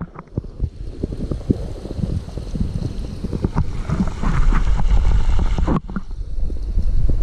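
Falling water of a waterfall heard from underwater in its plunge pool: a muffled low rumble with constant crackling and knocking, the airy hiss gone as the microphone goes under just at the start.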